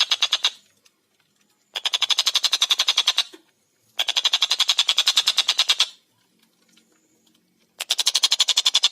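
Tengkek buto kingfisher giving its rapid, high rattling call in bouts of about 1.5 to 2 seconds: one ending near the start, then three more, the last starting near the end.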